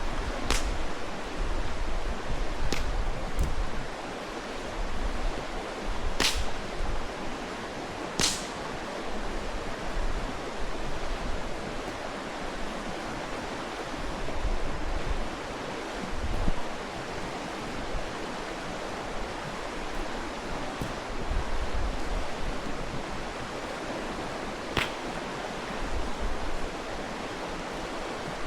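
Steady rushing of a mountain stream, with a handful of sharp pops and cracks from a wood campfire, the two loudest about six and eight seconds in.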